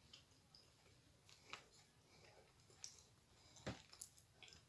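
Faint, scattered clicks and crunches from chewing a dry chunk of edible white clay (Astana Ideal), the strongest click about three and a half seconds in; otherwise near silence.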